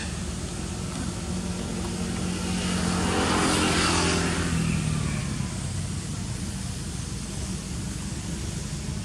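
A motor vehicle passing by: its engine and road noise swell to a peak about three and a half seconds in, then fade as the engine note drops slightly, over a steady low hum.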